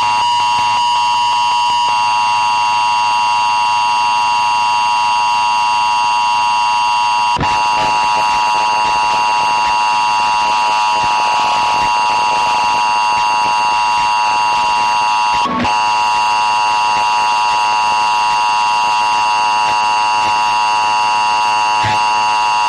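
Emergency alert system attention signal: a loud, harsh, steady buzzing alarm tone made of many stacked pitches, with brief glitch-like breaks about seven seconds in and again about fifteen seconds in.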